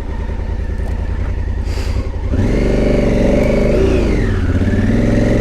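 Adventure motorcycle's twin-cylinder engine running at low revs. A little over two seconds in, it is opened up and gets louder, revving up, dipping briefly, then holding steady under throttle.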